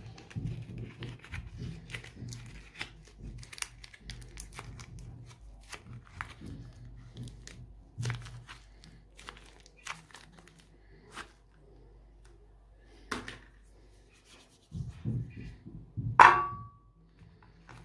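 Something crunchy being crushed: irregular crackling and sharp cracks over a low steady hum, growing sparser after about ten seconds. Near the end comes one loud knock with a short ringing tone.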